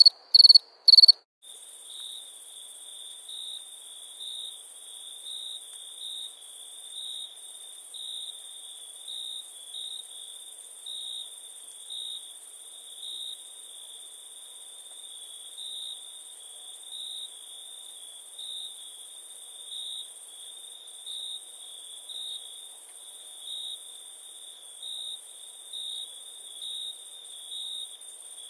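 Crickets chirping in a night forest chorus. About a second in, loud, evenly spaced chirps about twice a second cut off abruptly. They give way to a softer high trill that pulses about twice a second over a steady, very high insect hiss.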